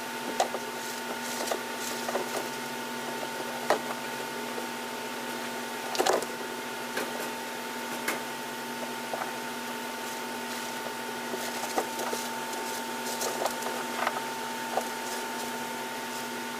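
Chinchillas scrabbling and shuffling in a wire cage and a plastic dust-bath bowl: scattered small clicks and scratches, with a brief louder cluster about six seconds in, over a steady electrical hum.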